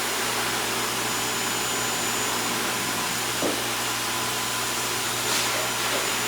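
Blow dryer running steadily: a constant rush of air with a thin, high, steady tone over it.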